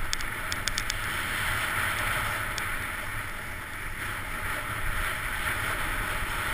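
Sled sliding over packed, rutted snow: a steady scraping hiss with a low rumble beneath it, and a few quick clicks in the first second.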